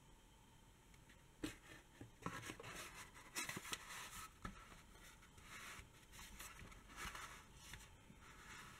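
Faint scraping and rustling of a cardboard sleeve as a Maxtor hard drive is slid into it by hand, with a few light knocks about one and a half and three and a half seconds in.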